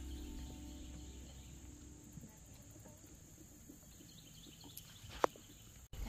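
Faint outdoor ambience with a steady high insect drone, as background music fades out over the first two seconds. A single sharp click about five seconds in.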